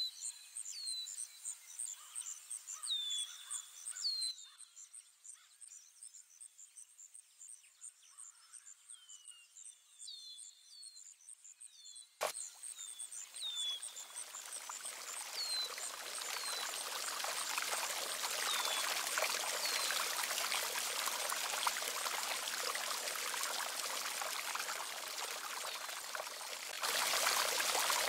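Fountain water splashing from spouts into a stone basin, fading in after a sharp click about twelve seconds in and growing louder, with a step up near the end. Before it there are short falling bird chirps over a high, pulsing insect-like trill.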